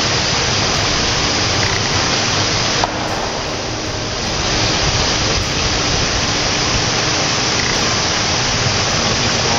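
Creek water rushing steadily over a small rock-ledge cascade, a constant hiss.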